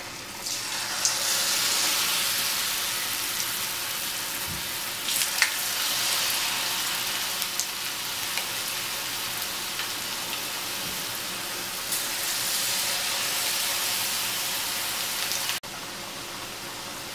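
Hot oil sizzling and bubbling as spoonfuls of cabbage pakoda batter deep-fry in a wok, swelling louder a few times as more batter goes in, with a few light clicks. The sizzle drops suddenly to a lower level near the end.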